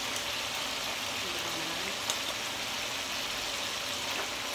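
Hot oil sizzling steadily in a skillet as galunggong (round scad) fish deep-fry.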